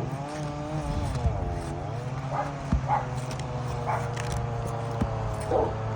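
A dog whining in one long, wavering, drawn-out tone, with a few short yips. Underneath are a steady low hum and a few sharp knocks from a crowbar prying at asphalt roof shingles.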